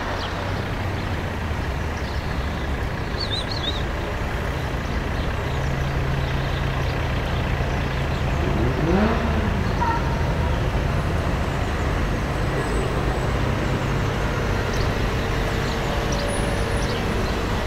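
Road traffic: a vehicle engine running with a low steady hum, with other traffic going by.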